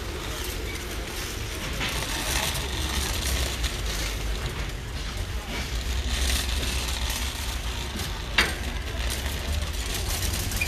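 A shopping cart rolling over a concrete store floor in a busy warehouse store, with a steady low rumble and one sharp click about eight seconds in.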